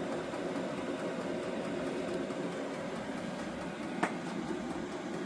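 Steady hum of a VEVOR diesel heater running inside a small tent, with one short click about four seconds in.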